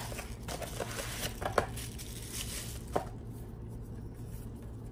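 Cardboard eyeshadow palette packaging being handled and opened: papery rustling and scraping with a few light clicks in the first three seconds, quieter after.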